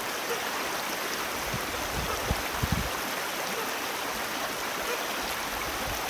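Mountain valley stream running, a steady even rush of water, with a few soft low thumps about two to three seconds in.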